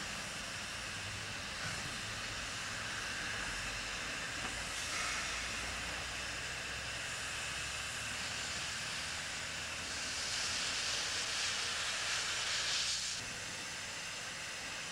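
Steam hissing from an East Broad Top narrow-gauge steam locomotive, growing louder in the second half and cutting off suddenly about two seconds before the end.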